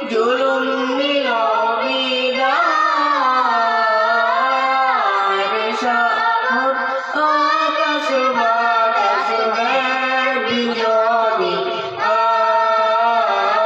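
A boy and a girl singing a Bengali Islamic gazal together into microphones, in long held notes with wavering ornaments, with short breaks for breath about halfway and near the end.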